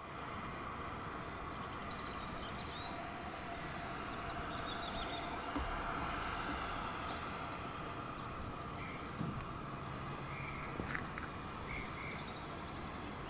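Distant steam locomotive 6989 Wightwick Hall, a GWR Modified Hall 4-6-0, hissing steam steadily as it moves off with its coaches, with a few faint knocks. Small birds chirp over it.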